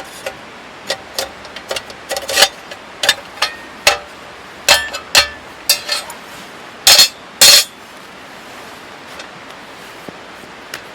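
A series of irregular metallic clinks and knocks from camping gear being handled, some ringing briefly, the loudest a close pair of knocks about seven seconds in, over a steady outdoor hiss.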